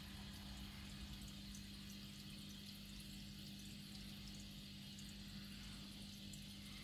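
Faint, steady bubbling and trickling of aquarium aeration, a stream of fine air bubbles rising through the water, with small scattered pops over a steady low hum.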